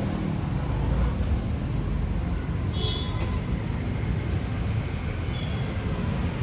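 Steady low rumble of outdoor street background noise, with a short high squeak about three seconds in.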